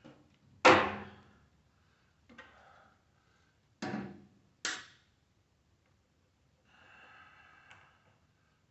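Three sharp clacks from wire cutters and tools working on a microwave's power cord and sheet-metal case, the first, about a second in, the loudest, the others about four and five seconds in, with faint rustling and scraping of the cord between.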